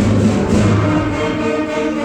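Loud instrumental music with several sustained notes sounding together, orchestra-like, opening with a sudden low hit and a brief, busier passage in the first second.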